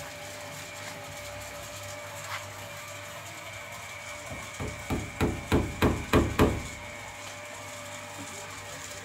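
A quick run of about seven knocks, about three a second, each louder than the last, over a steady faint hum with a thin high whine.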